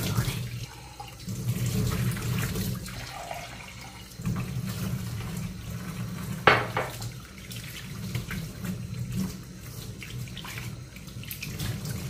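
Kitchen tap running into the sink while hair is washed under it, the water sound dipping and swelling. One sharp knock about halfway through.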